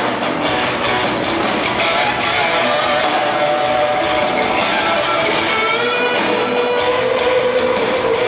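Live rock band playing: electric guitars over drums, with a long held guitar note from about five seconds in, heard from the audience.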